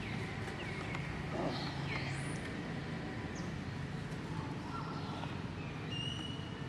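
Several short high animal chirps, some falling and some rising in pitch, with a held high call near the end, over a steady low hum.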